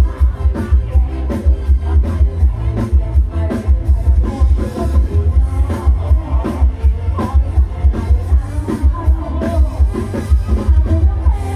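A live band on a rot hae stage truck plays loud dance music through a large PA system. A heavy pulsing bass beat drives it, and a female singer sings over the top.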